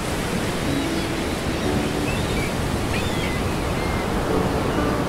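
Heavy surf: a steady, unbroken rush of waves breaking, whipped up by gale winds and storm surge.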